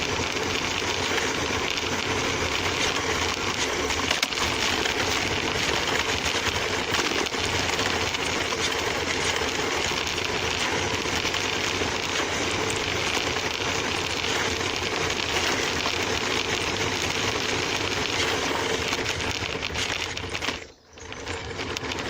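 Remote-control toy car's small electric motor running and its wheels rattling along the ground, a steady, busy noise. It cuts out briefly near the end, then resumes.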